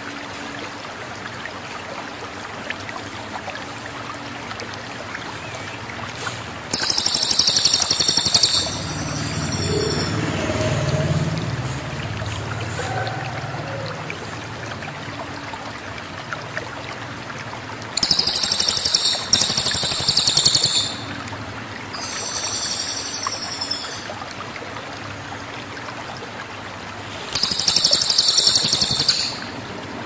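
A cililin, a caged songbird, gives loud, very high-pitched bursts of song four times, each lasting about two seconds, over a steady background hiss.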